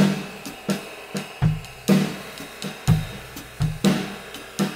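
Drum kit played in a steady, low-key groove: bass drum, snare and hi-hat or cymbal strokes at an even pace, about two a second, with a deep bass-drum hit every second and a half or so.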